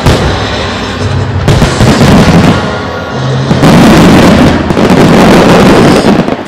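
Star mine fireworks barrage: aerial shells bursting in quick succession, with music playing underneath. About three and a half seconds in, the bursts thicken into a loud, continuous mass that cuts off sharply near the end.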